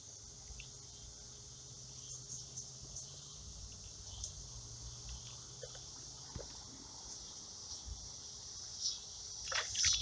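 Insects chirring steadily at a high pitch, with faint ticks of handling.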